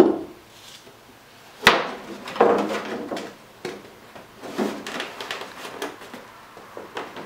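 Wooden knocks and thumps from a cedar strip being handled and fitted against the canoe's strip hull: a sharp knock at the start and another about two seconds in, then several softer thumps.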